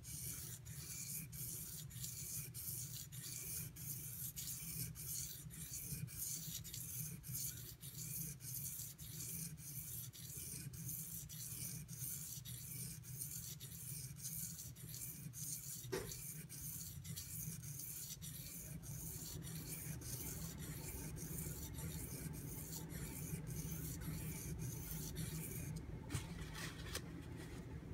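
AUS-8 steel knife blade stroked back and forth on a Shapton Pro waterstone in a steady rasping rhythm of about two strokes a second. The uneven tanto-tip bevel is being ground down to reprofile it. The strokes stop a couple of seconds before the end.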